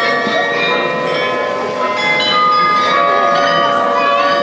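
The Munich New Town Hall Glockenspiel, a carillon of 43 bells, is playing a tune. Bells are struck one after another and their tones ring on over each other, with the chatter of a crowd underneath.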